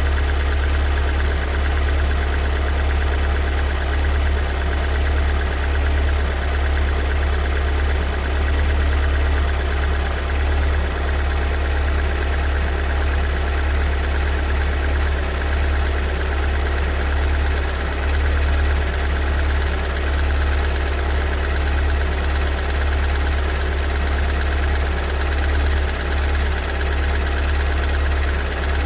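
2022 Kia Sorento's 2.2 four-cylinder diesel engine idling steadily after a cold start. A loud knocking sets in around two-thirds of the way through. The owner takes it for a fault, although Kia service finds no error in diagnosis.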